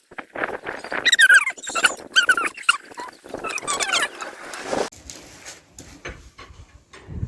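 Dog whining and yelping in a quick run of short, high, wavering cries about one to three seconds in, followed by softer scuffling.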